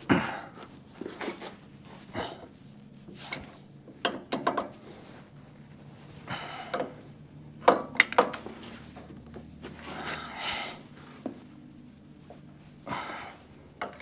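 Wrench being worked back and forth on a stuck injector nozzle of a Deutz tractor's air-cooled diesel engine, a nozzle that has been leaking: short scraping strokes at irregular intervals with a few sharp metal clicks, loudest a little under halfway through.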